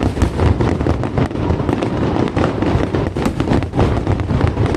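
Aerial fireworks going off in a dense, rapid barrage of overlapping bangs and crackles.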